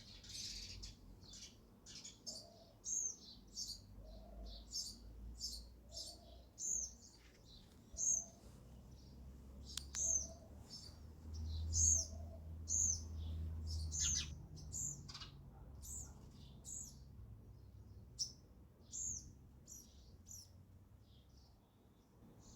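House sparrows chirping: a busy run of short, sharp chirps, repeated one or two a second. A low rumble rises under them around the middle.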